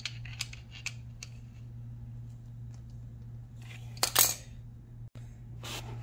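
Light metallic clicks and clinks from a motorcycle roller chain and a screw-type chain breaker tool being handled, with one louder metal clatter about four seconds in. A steady low hum runs underneath.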